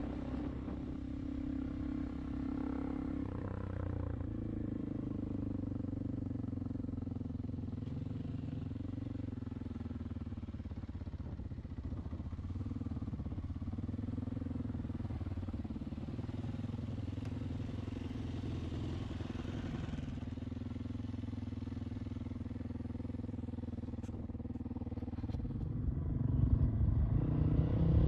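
Dirt bike engine running steadily on a ride, changing pitch a few seconds in and getting louder near the end.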